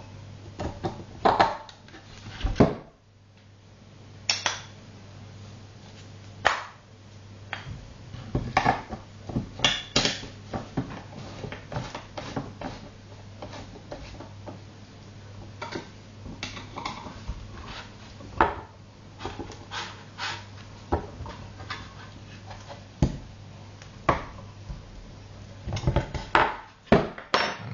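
Irregular clinks and knocks of climbing holds and metal hardware being handled and fitted against plywood, with no steady rhythm, over a steady low hum.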